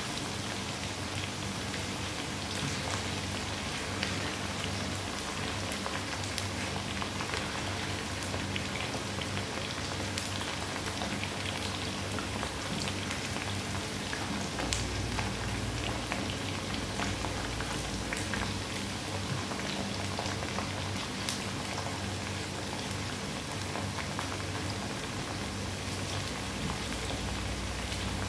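Potato wedges sizzling and crackling in hot oil in a frying pan, with small pops throughout. A low hum comes in about halfway through.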